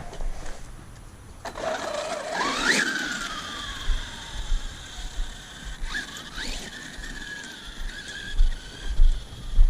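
Traxxas Sledge RC truck's brushless electric motor whining as it accelerates: the pitch swoops up and down about two seconds in, then holds a steady high whine for several seconds at speed, with low rumbling thumps near the end.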